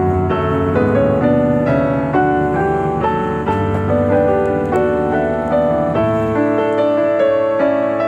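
Background music: a piano melody with held chords.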